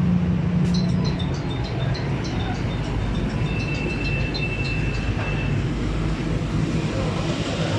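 Street traffic noise with vehicle engines running, a run of quick high ticks in the first few seconds and a steady high tone for about two seconds midway.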